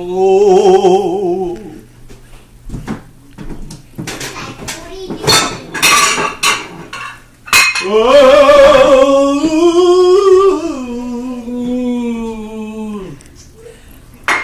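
Dishes and cutlery clinking and clattering as they are handled, with a man's wordless singing: a short warbling note at the start, then a long held note from about eight seconds in that slides lower and stops about thirteen seconds in.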